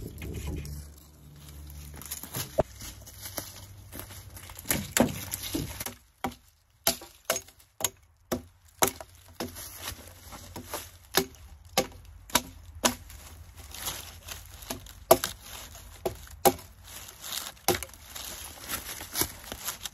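Repeated sharp knocks on wood at an uneven pace, about one or two a second, from work on a wooden rail fence. A low rumble lies under the first few seconds.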